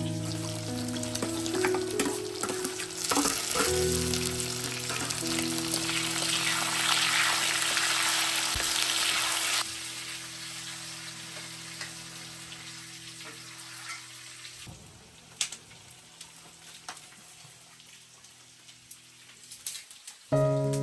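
Food frying with a steady sizzle, loudest in the first half, then dropping suddenly to a quieter sizzle with scattered crackles. Background music with sustained notes plays throughout.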